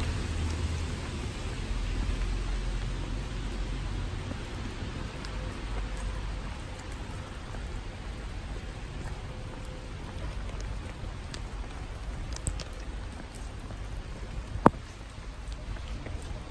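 Steady rain falling on wet pavement and cobbles, with a low traffic rumble fading over the first few seconds. A single sharp knock stands out near the end.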